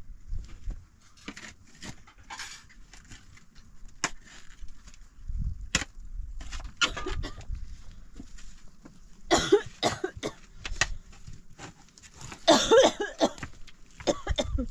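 Shovel digging into stony soil: scattered scrapes and knocks of the metal blade against dirt and stones. Two louder, longer rasping bursts stand out past the middle.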